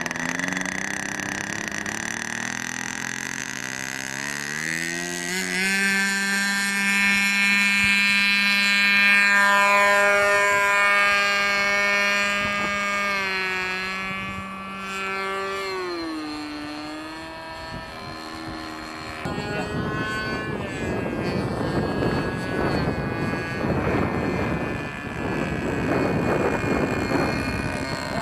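Motor and rotor of a radio-controlled lawnmower-helicopter, whining up in pitch over the first few seconds, then holding a steady pitch while it flies. About sixteen seconds in the pitch drops, and later the sound turns rougher and noisier.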